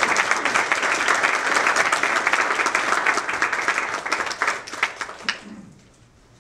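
Audience applauding at the end of a talk, thinning to a few scattered claps and dying away about five seconds in.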